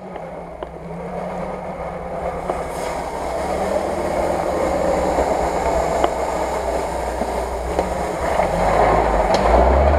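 UAZ-469 off-roader's engine running as it crawls through deep mud, growing louder and loudest near the end, with a few faint clicks.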